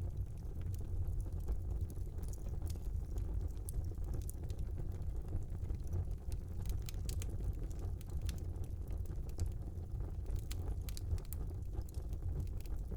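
Wood fire burning in a small fireplace: a steady low rumble with scattered sharp crackles and pops. The pops come in quick clusters a few seconds in, around the middle, and again near the end.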